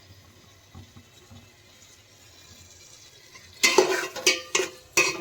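Spatula scraping and stirring rice and lentils as they fry in a cooking pot. It is quiet at first, then about four scraping strokes come from about three and a half seconds in.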